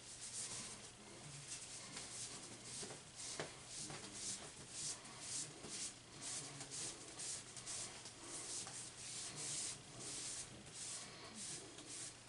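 Cloth towel rubbing over a candlepin bowling ball, faint quick wiping strokes about two a second, as the ball is cleaned and buffed with rubbing alcohol.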